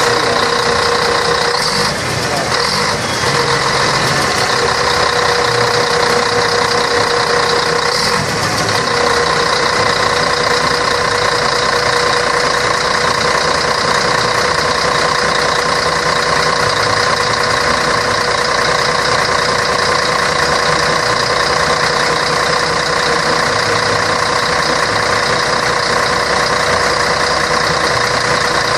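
Scania K113 bus's six-cylinder diesel engine running steadily, with a constant whine over the engine note.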